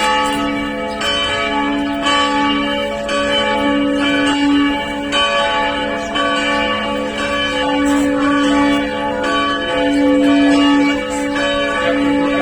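Several church bells ringing together, strikes about once a second and each tone ringing on under the next: the bells calling people in to prayer.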